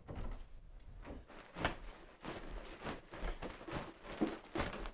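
Irregular knocks and rustles of things being handled, spaced unevenly.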